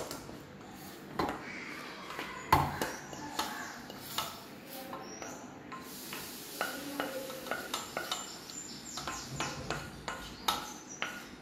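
Wooden spatula scraping cooked cucumber mash out of a stainless steel pan into a steel serving bowl: repeated scrapes and metal clinks, with one louder knock about two and a half seconds in and quicker scraping strokes in the second half.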